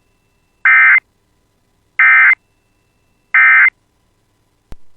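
Emergency Alert System end-of-message code: three short bursts of SAME digital data tones, each a harsh buzz about a third of a second long, coming about 1.3 seconds apart. A brief click follows near the end.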